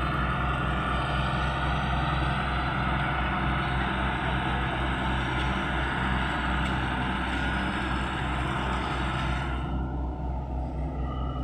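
Diesel engine of a heavy earth-moving machine running steadily under load, with a deep, even hum. About nine and a half seconds in, the higher-pitched part of the noise drops away and the engine runs on more quietly.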